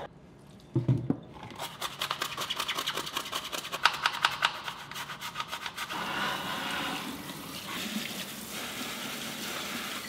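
A toothbrush scrubs the mesh of a dishwasher filter in fast, even strokes after a soft knock. About six seconds in, the kitchen faucet starts running and the water splashes over the filter into a stainless steel sink.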